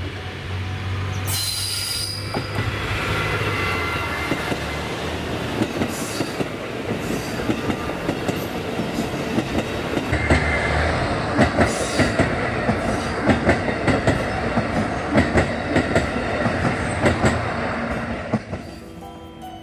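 JR East KiHa E130 diesel railcar rolling slowly through a station, its engine droning low, with a brief high wheel squeal about a second and a half in. About ten seconds in, a train passes close by, louder, its wheels clicking rhythmically over the rail joints until it fades near the end.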